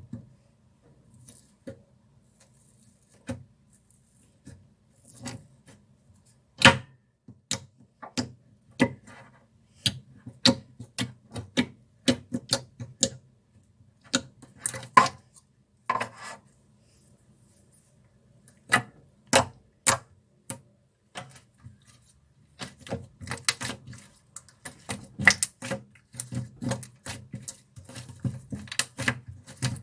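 Thick toffee slime being pressed, squished and stretched by hand, giving irregular sharp clicks and pops as air pockets burst, sometimes in quick runs.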